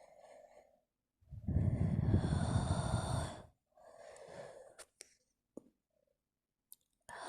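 A woman breathing heavily close to the microphone. A long, loud breath of about two seconds starts about a second in, followed by a softer breath and a few small clicks.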